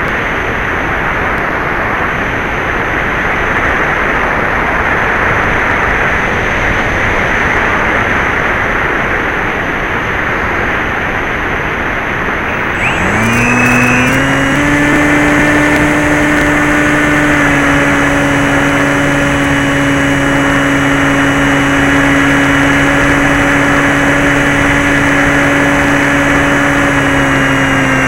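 Radio-controlled model airplane in flight: a steady rush of air with no clear motor tone, then about 13 seconds in the motor and propeller spin up, rising quickly in pitch, and run at a steady throttle.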